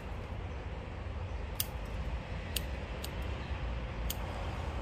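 Garden scissors snipping geranium stems and large leaves, three or four sharp snips about a second apart, over a steady low rumble.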